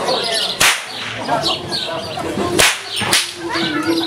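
Hungarian herdsman's whip cracking three times, sharp loud snaps about a second in, near the middle and again half a second later. The crack comes from the short string at the whip's end breaking the sound barrier as the whip is swung.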